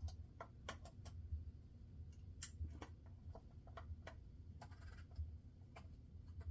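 Faint, irregular small metallic clicks and ticks of a screwdriver and screws working on a Penn 85 reel's side plate as the reel is screwed back together.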